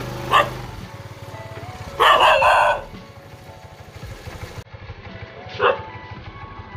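A dog barking: a short bark about half a second in, a longer, louder run of barking about two seconds in, and another short bark near the end.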